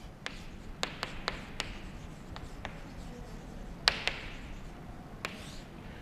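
Chalk writing on a chalkboard: a series of sharp taps as the chalk strikes the board, with short scratchy strokes in between.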